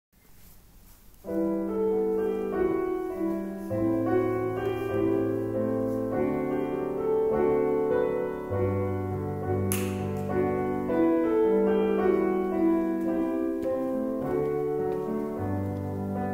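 Slow instrumental piano music, held chords of several notes, beginning about a second in. A single short click sounds about ten seconds in.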